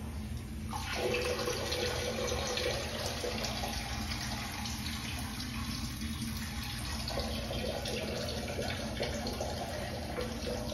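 Steady rush of running water in a tiled restroom, starting about a second in.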